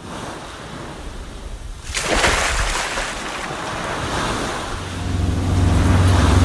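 Ocean waves washing in, with a loud wave swish about two seconds in. From near the end, a boat engine runs with a steady low hum under the surf.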